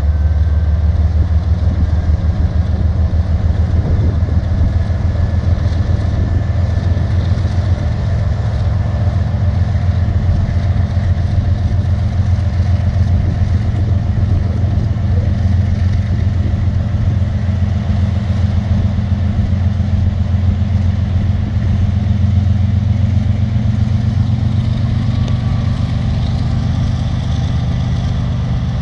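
Diesel-electric freight locomotives running, their engines giving a steady low drone with a rumble underneath as the units move slowly along the track.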